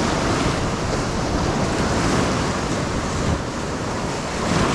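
Surf washing up the beach: small waves breaking and foaming over the sand at the water's edge, a steady rushing noise, with wind buffeting the microphone.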